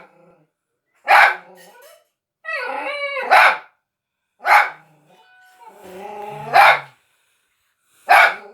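A dog barking in single sharp barks, about five in all, spaced one to two seconds apart, with wavering pitched sounds between some of them.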